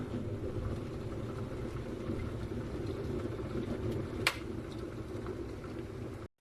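Tough Mama 1.8L electric kettle heating water: a steady low rumble with faint crackling, and one sharp click about four seconds in.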